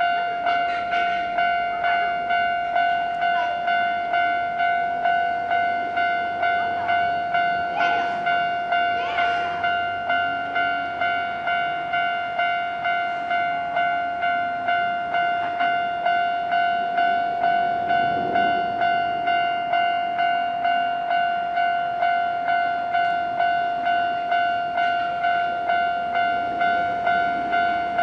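Japanese railway level crossing's electronic warning bell ringing in an even, rapid, repeating ding-ding, one steady pitch with overtones. It is the signal that a train is approaching and the crossing is closed.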